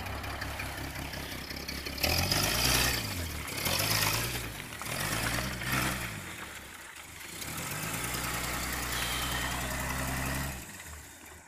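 Off-road pickup truck's engine revving under load as it climbs a steep slope, its pitch rising and falling several times, then holding steady before easing off near the end.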